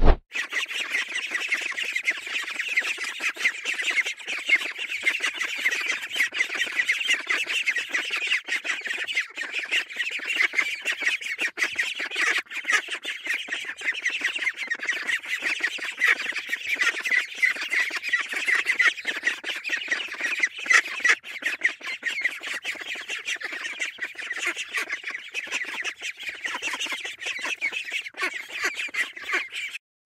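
A brood of domestic ducklings peeping: many short, high calls overlapping in a continuous chatter. A sharp click at the very start.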